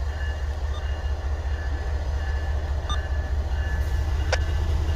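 Canadian Pacific freight train's diesel locomotive approaching slowly, a steady low engine rumble that grows gradually louder, with a short click about four seconds in.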